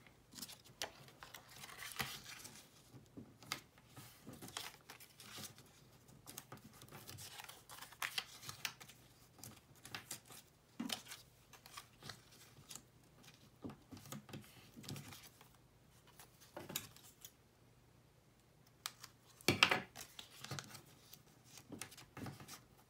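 Sheets of folded paper being handled and their creases pressed and rubbed flat by hand: quiet, scattered rustles and scrapes, with a louder burst of handling about twenty seconds in.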